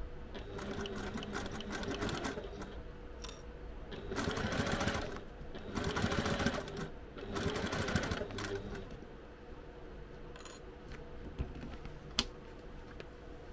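Domestic sewing machine basting layers of fabric together, stitching in several short runs that stop and start. After about nine seconds it falls quieter, and there is one sharp click near the end.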